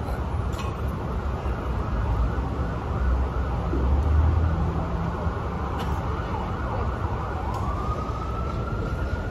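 City street traffic noise with an emergency vehicle siren: a low rumble swells about four seconds in, and near the end a siren wail rises in pitch and holds high.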